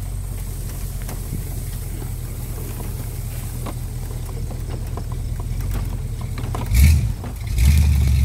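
Engine of an off-road buggy (a Warthog replica) running with a low, steady note as it drives through tall grass, then revving up twice in quick succession near the end.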